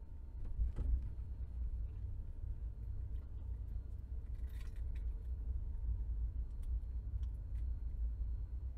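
Car cabin ambience: a steady low rumble heard from inside the car, with scattered faint clicks and a brief rustle about four and a half seconds in.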